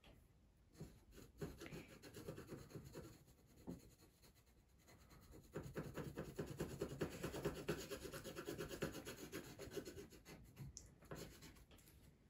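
Yellow coloured pencil scribbling rapidly back and forth on paper while colouring in an area. There is a shorter spell about a second in, then a longer, louder spell from about halfway through.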